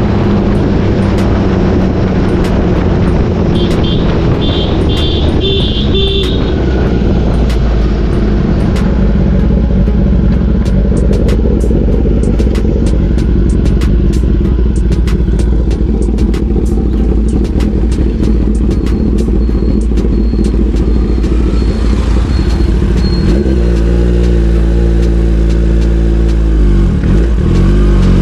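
Kawasaki ZX-10R inline-four engine running steadily under way. A series of short high beeps comes about four seconds in, and near the end the revs rise and fall several times.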